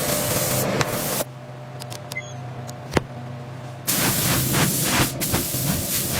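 Loud hissing noise in two stretches, broken for about two and a half seconds in which only a low steady hum and one sharp click remain.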